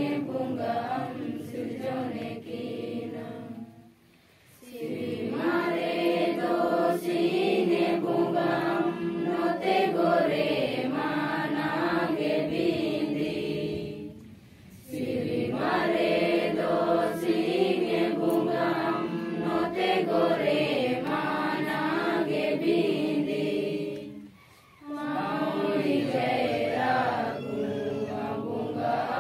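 A group of voices singing a prayer song together in unison, unaccompanied, in long phrases about ten seconds each with three short breaks between them.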